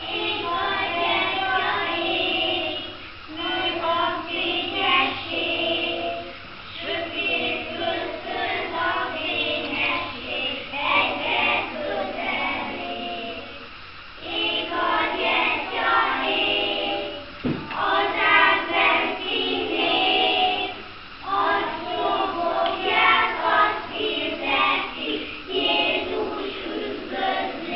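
A group of young children singing a song together, in phrases with short breaks between them. A single knock sounds about two-thirds of the way through.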